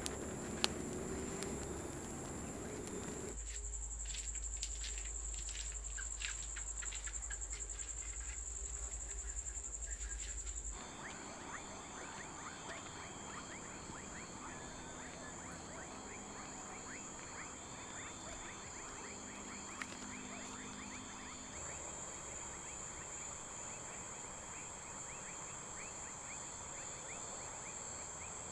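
Insects trilling in a steady high pitch. After about eleven seconds a dense patter of fast ticking chirps joins in. From about three to eleven seconds a low hum sits underneath.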